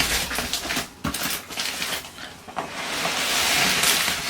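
Cardboard box being handled and opened: irregular rustling and scraping with a few light knocks.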